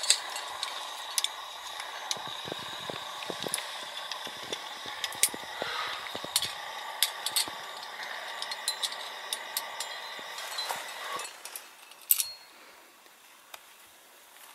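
Metal climbing gear clinking and rattling, with scattered sharp clicks over rustling, as carabiners and hardware on a harness and rope knock about. It goes much quieter about eleven seconds in, with one more click a second later.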